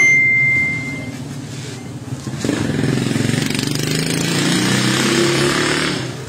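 A motor vehicle engine running close by, strongest in the second half and fading near the end, with a brief steady high beep at the start.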